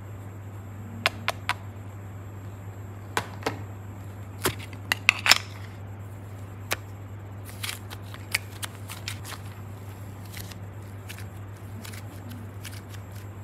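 Scattered sharp clicks and taps of fingers handling a small block of grey modelling clay in a popsicle-shaped mould, with a quick cluster of clicks about five seconds in, over a steady low hum.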